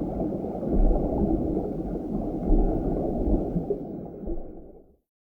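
Muffled underwater rumble and gurgling, with a few heavier low swells, fading out about five seconds in.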